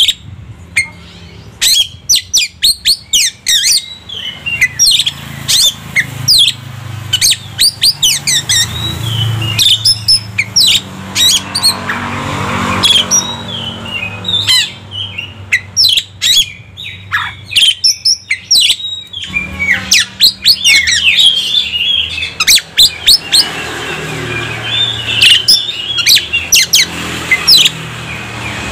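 Oriental magpie-robin (kacer) singing a fast, loud run of sharp whistled notes and quick sweeping phrases, with a steady low hum beneath.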